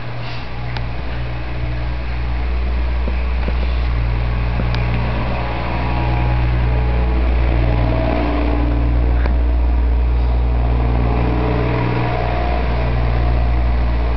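A steady low rumbling hum, with a few faint clicks.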